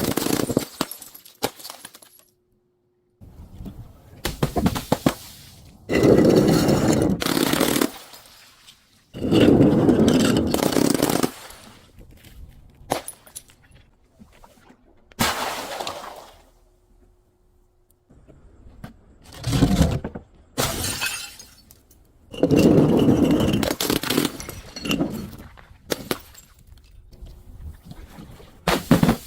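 Glass bottles and other brittle objects being crushed, in a series of loud crunching and shattering episodes of one to three seconds each with short pauses between.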